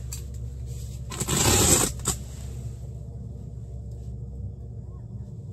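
A short scraping rustle of fabric about a second in, lasting under a second, followed by a single click, over a steady low hum.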